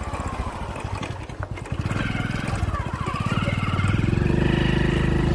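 Motorcycle engine running under way, its firing pulses speeding up about two seconds in and running louder and steadier from about four seconds.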